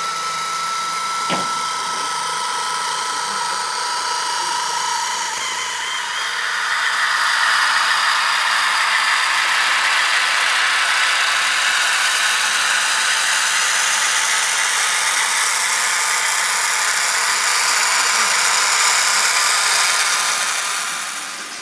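Lux Modellbau model track-cleaning and rail-grinding wagons running past, their small electric motors spinning the cleaning and grinding heads with a steady whirring rattle. A thin whine in the first few seconds; the whirr grows louder about six seconds in and falls away near the end.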